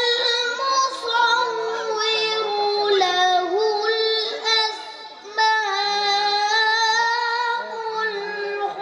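A boy's solo voice chanting unaccompanied through a microphone, holding long, ornamented notes in two phrases with a short breath about five seconds in.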